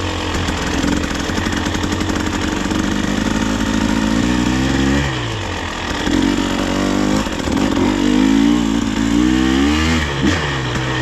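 Dirt bike engine running under load as it is ridden, its pitch climbing several times as it revs up and dropping back when the throttle eases off, with a few quick throttle blips near the end.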